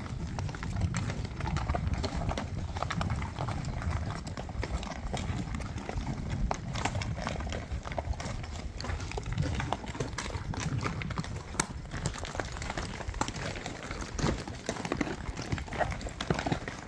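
Horses' hooves clopping irregularly on a stony dirt trail as a string of trail horses walks along, over a steady low rumble.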